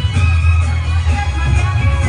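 Loud music with a heavy bass line and melodic lines above it.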